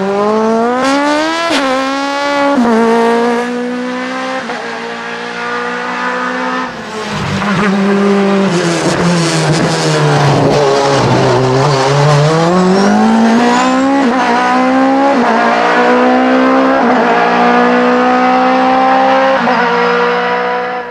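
Norma M20FC sports-prototype race car's engine at full throttle on a hillclimb, its pitch climbing through the gears with sharp drops at each upshift. About a third of the way in the pitch falls as the car slows for a bend, then climbs again through several more upshifts.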